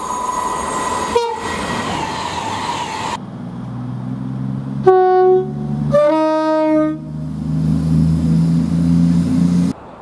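An electric express train runs through with a rushing noise for about three seconds. Then a CrossCountry Voyager diesel multiple unit runs with a steady low engine drone and gives two short blasts on its two-tone horn, about five and six seconds in, the second higher than the first.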